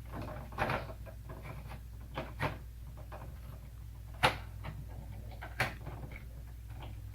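Plastic clicks and knocks from a toy tow truck being handled and its parts moved, a few separate taps with the sharpest one about four seconds in.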